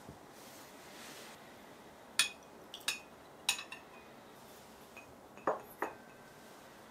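A small glass measuring cup clinking as a metal spoon taps it three times while yeast is tipped into the warm milk, then two duller knocks near the end as a stirrer strikes the glass.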